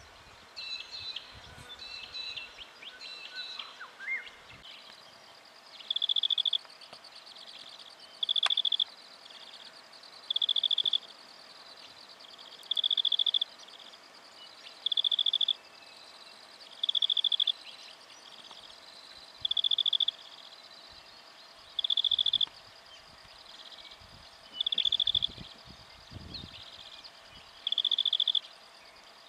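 Outdoor animal calls: a few scattered chirps in the first seconds, then a short pulsed trill repeated about every two seconds over a steady high hum.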